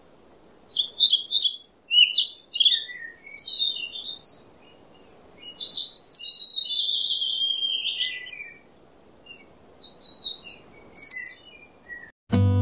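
A songbird singing quick, high chirping and warbling phrases in several bouts with short pauses, the longest phrase running for about three seconds in the middle. Acoustic guitar music comes in suddenly just before the end.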